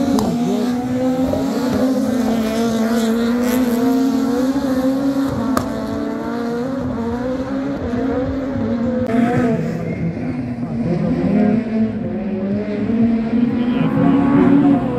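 Several rallycross race cars' engines running hard around the circuit, their notes rising and falling as they rev through the corners and accelerate.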